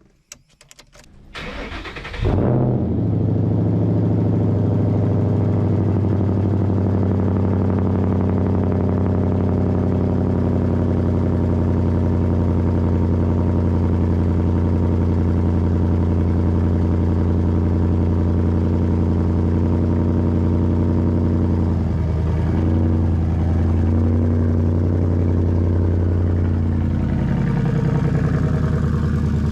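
2012 Ford Mustang Boss 302's 5.0-litre V8 cold-started through SLP Loudmouth axle-back mufflers: the starter cranks briefly, the engine catches about two seconds in, then runs at a steady, loud cold-start fast idle that settles slightly lower near the end.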